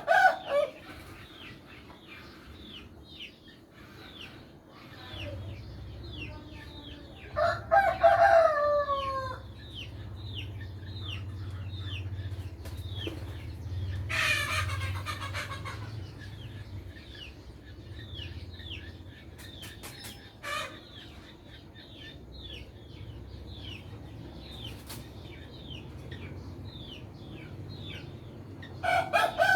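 Roosters crowing several times, the loudest crows at the start, about eight seconds in and near the end, each a falling, drawn-out call. Between them runs a steady scatter of short high chirps over a low hum.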